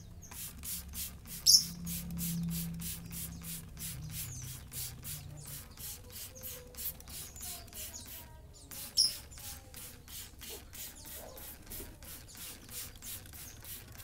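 Plastic trigger spray bottle pumped over and over, about three or four quick hisses of mist a second, soaking a lovebird. The spraying breaks off briefly about eight and a half seconds in. Two short, sharp high-pitched sounds stand out, about a second and a half in and again about nine seconds in.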